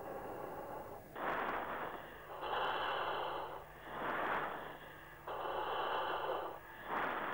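A jet pilot breathing through an oxygen-mask microphone, heard over the intercom. There are about five breaths, in and out in turn, each a rush of air lasting around a second, with a thin, band-limited sound.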